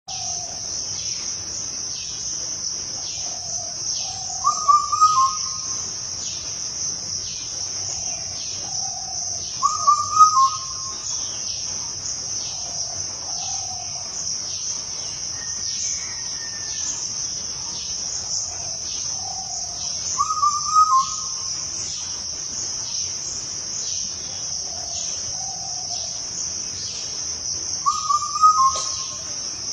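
A bird repeating a short two-note call four times, several seconds apart, with fainter lower notes between, over a steady high-pitched chorus of crickets or other insects.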